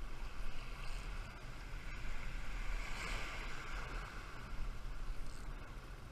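Surf washing in along the beach, with wind rumbling on the camera microphone; the wash swells about three seconds in.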